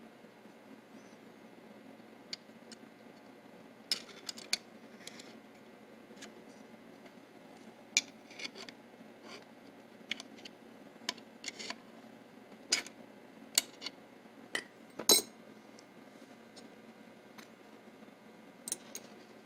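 Small metal parts being handled, clicking and clinking against each other and a hard surface in scattered sharp clicks, the loudest about fifteen seconds in.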